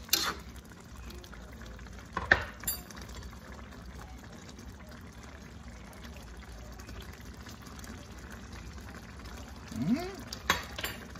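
Thick vegetable and goat stew simmering in a pot with a steady faint bubbling. A spoon knocks against the pot at the start, about two seconds in, and again near the end.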